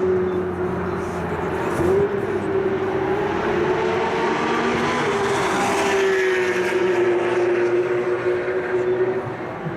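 High-performance car engines running in a free-driving session: one steady engine note wavering slightly in pitch throughout, with another car's note sweeping past and falling in pitch around the middle.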